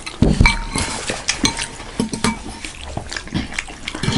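Cutlery clinking and scraping against a bowl during a meal of thukpa noodle soup and momo, with scattered small clicks close to the microphone; one clink rings briefly about half a second in.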